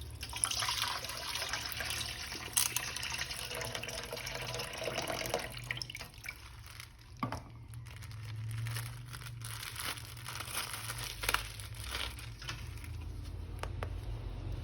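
Water running from a tap in a steady hiss for about six seconds, then stopping; after that come intermittent splashes and small clicks as a plastic action figure is handled in the water.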